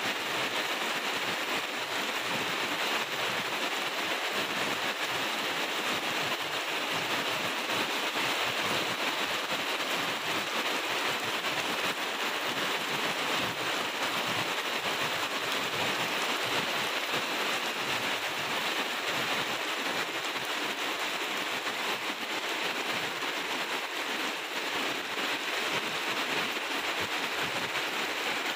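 Heavy rain falling steadily on grass and leaves, an even hiss.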